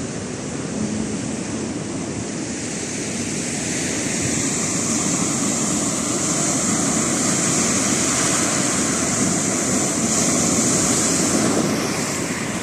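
Ocean surf washing in on the shore: a steady rush of water that builds up over several seconds and eases off near the end.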